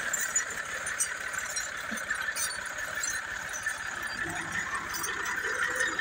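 Tractor's diesel engine running steadily under load as the mud-stuck tractor works its way forward, with light rattling.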